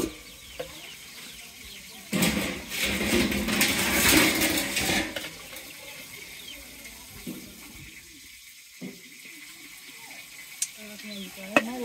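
A rush of pouring or splashing liquid lasting about three seconds, starting about two seconds in, over a quieter background of faint voices.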